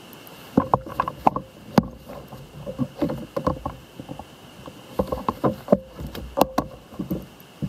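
Irregular knocks and clatter against the hollow hull of a fishing kayak as the landing net is grabbed and swung about. There are a dozen or so sharp raps, starting about half a second in and stopping just before the end.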